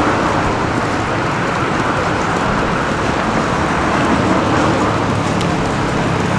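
Steady road traffic noise on a busy city street: a continuous wash of passing vehicles.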